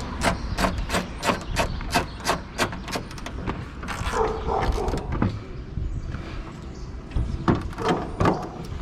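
Ratchet wrench clicking in quick back-and-forth strokes, about three to four clicks a second at first, then slower and softer, with a few more clicks near the end, as screws holding a replacement trunk latch are driven in and tightened.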